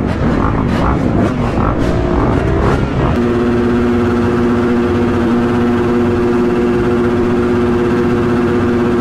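Dirt bike engines at a motocross starting gate, revved in rising and falling blips for the first few seconds, then settling about three seconds in into a steady drone held at one pitch.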